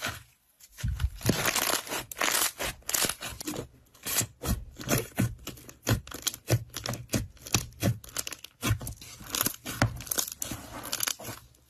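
White fluffy slime being squeezed and pressed by hand in a round tub, giving a dense, irregular run of sticky crackles from about a second in.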